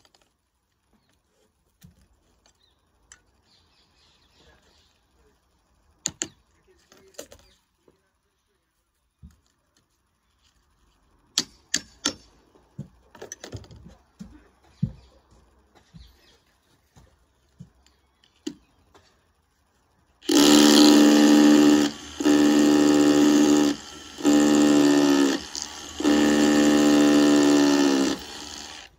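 Light clicks and knocks of handling, then a power tool runs in four bursts of about two seconds each with short breaks, cutting a shallow notch a few millimetres deep.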